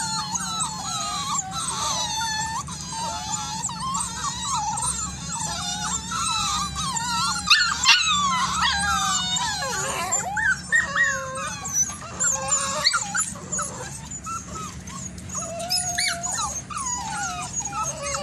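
A group of puppies howling and whining together, many wavering cries overlapping in a continuous chorus.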